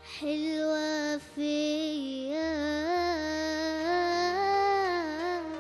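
A boy singing a long, ornamented Arabic tarab phrase into a microphone, with vibrato and turns in pitch; he pauses for breath about a second in, then holds one long phrase almost to the end. Quiet instrumental accompaniment sustains underneath.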